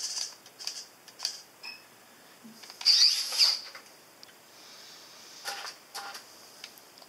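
Hobby servos in a 3D-printed robot arm whining and chattering as the arm swings up from the floor, with scattered clicks and the loudest burst about three seconds in.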